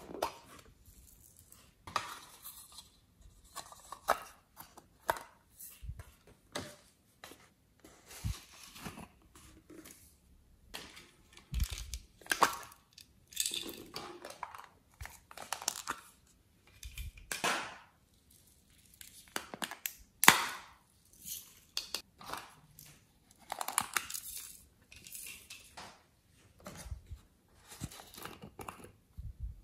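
Hands handling small plastic containers and sprinkling glitter and beads onto a tray of clay and slime: irregular plastic clicks, taps, rattles and rustles, with one sharp click about twenty seconds in.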